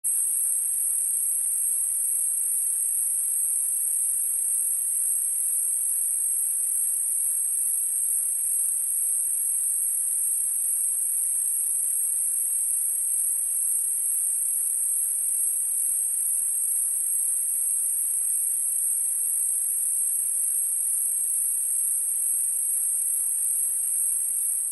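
A continuous, very high-pitched tone made of several close pitches sounding together, held perfectly steady and loud; it starts suddenly out of silence.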